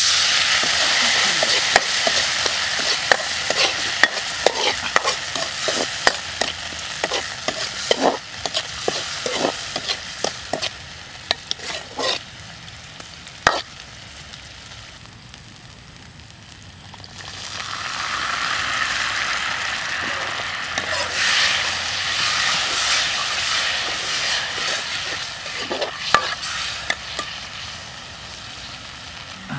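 Oil and chopped garlic sizzling in a steel wok while a metal ladle stirs, scraping and knocking sharply against the pan. The sizzle dies down around the middle, then flares up loudly again a few seconds later.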